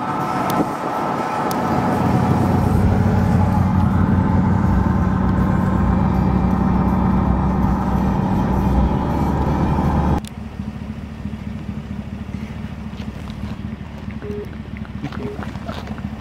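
Engine and road noise inside a moving car, loud and steady. About ten seconds in, it cuts abruptly to a quieter, steady low engine hum.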